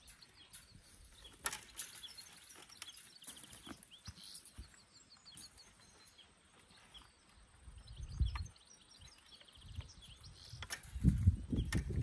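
Quiet outdoor ambience with faint scattered clicks and short high chirping trills, and a low rumble rising near the end.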